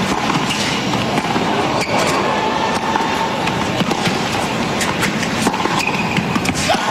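Tennis racquets striking the ball during a baseline rally, a few sharp pops over a steady murmur of a stadium crowd.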